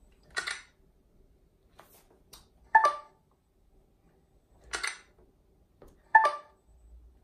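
Ninebot Z10 electric unicycle being handled: two brief hissing sounds, about half a second and about five seconds in, and two sharp ringing ticks or beeps, about three and six seconds in, which are the loudest.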